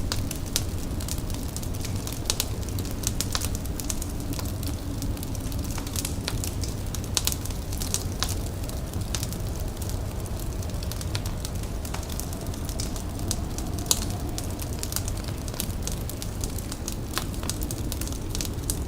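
Indoor fire crackling, with frequent sharp pops over a steady low rumble.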